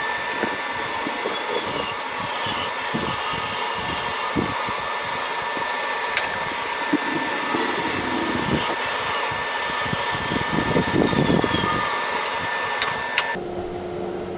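Large resaw bandsaw with a 4.5 horsepower motor running and cutting through a thick log section of green wood, a steady whine over the rough rasp of the blade in the wood. The cutting sound drops away about a second before the end as the blade comes out of the cut.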